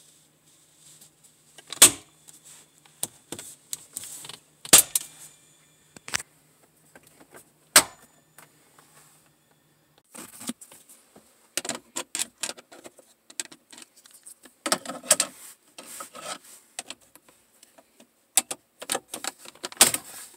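Hard plastic dash trim on a 2009 Chevy Aveo being handled and pushed back into place: a few sharp clicks and snaps in the first eight seconds, then a busier run of small clicks and rattles.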